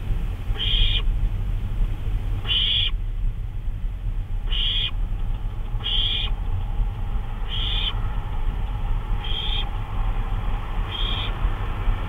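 Barn owl giving a series of short raspy calls, about seven in a row, one every one and a half to two seconds, over a steady low hum.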